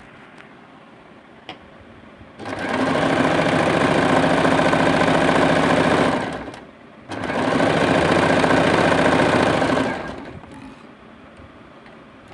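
Sewing machine running at speed in two stretches of stitching of about four and three seconds, with a short stop between them.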